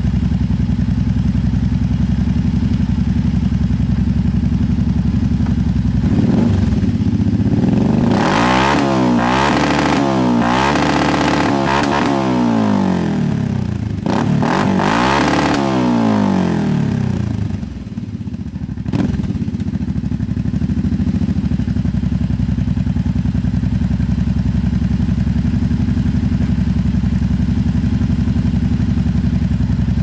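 Kawasaki 700 ATV's V-twin engine running through dual Yoshimura aftermarket slip-on mufflers: idling steadily, then revved in a series of throttle blips, rising and falling in pitch, before settling back to idle.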